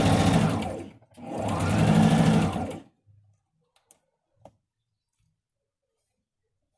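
Domestic electric sewing machine stitching a seam in two short runs, the motor speeding up and slowing down each time, with a brief stop about a second in.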